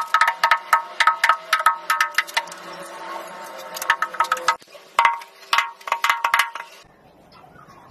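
Rapid runs of taps on ceramic wall tile, several a second, each ringing briefly at the same few pitches, as tiles are knocked into place on the wall. The tapping stops for a moment about halfway through, then comes in two more short runs and dies away near the end.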